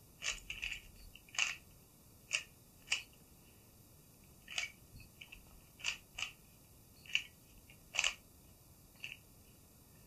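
Plastic Meilong speedcube having its faces turned by hand, scrambling it: about a dozen short, sharp plastic clicks at irregular intervals, roughly one a second.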